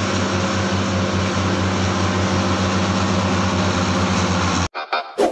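Caterpillar D6R bulldozer's diesel engine running steadily as the dozer pushes a load of soil. The engine cuts off abruptly about four and a half seconds in, and short electronic music sounds begin.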